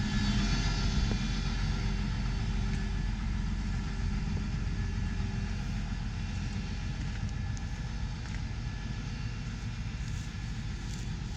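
Farm tractor's diesel engine idling steadily at a low rumble, warming up after a cold night before work, its loudness easing off slightly over the seconds.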